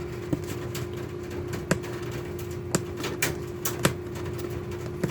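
Webcam retail box and packaging being worked at by hand, giving irregular sharp clicks and taps about once a second, over a steady faint hum.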